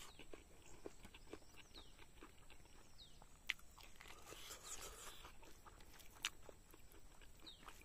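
Quiet close-up eating sounds: chewing and crunching a bite of okra, with soft smacks and clicks as fingers mix rice on a banana-leaf plate. Two sharper clicks stand out, one about halfway through and one near the end.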